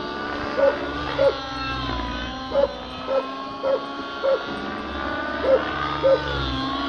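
Radio-controlled helicopter's nitro engine running in flight, its pitch wavering up and down as it manoeuvres. Eight short, loud animal calls in four pairs stand out above it as the loudest sounds.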